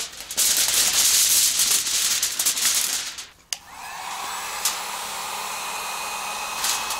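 Aluminium foil crinkling and rustling as it is handled for about three seconds. After a short pause, a click and a 1500-watt heat gun switches on and runs with a steady blowing whine, heating the PVC conduit to soften it for bending.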